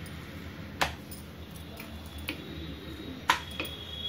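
Parotta dough being handled and rolled with an oiled wooden rolling pin on a slab: two sharp knocks about two and a half seconds apart with a few fainter taps, over a low steady hum.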